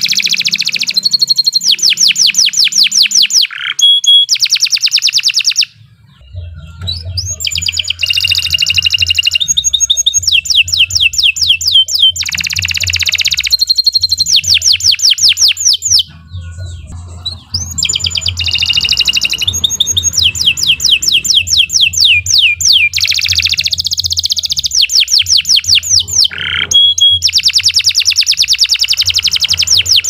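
Domestic canary singing a long, loud song of fast trills and rolling runs of rapidly repeated high notes, broken by short pauses about six and sixteen seconds in.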